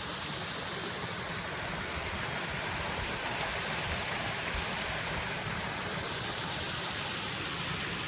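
Steady, even rushing of a nearby stream of running water.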